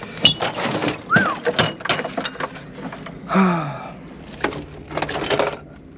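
Heavy steel plate knocking and clanking against other scrap metal as it is hauled out of a scrap bin, in a string of sharp impacts with a short strained vocal sound about midway.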